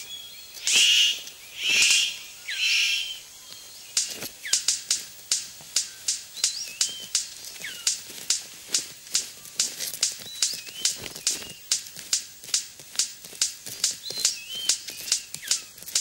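Male superb bird-of-paradise courting a female: three loud, harsh calls in the first three seconds, then a steady run of sharp clicks, about two or three a second, as he dances in display with his black cape spread.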